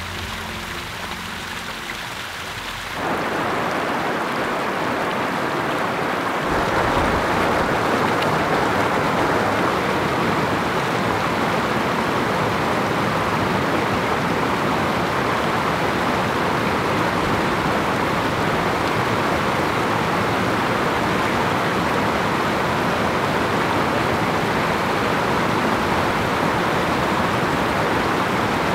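Running water: a small cascade splashing over rock, then a mountain stream rushing over stones. The level steps up about three seconds in and again at six and a half seconds, then holds as a steady rush.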